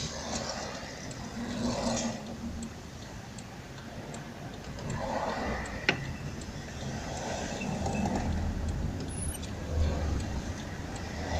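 Daewoo Nexia heard from inside its cabin, crawling in traffic, with a steady low engine rumble and passing traffic noise that swells and fades several times. A single sharp click about six seconds in.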